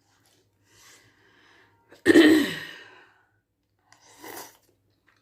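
A person lets out one sudden, loud voiced breath that falls in pitch and fades over about a second, with quieter breaths before and after it.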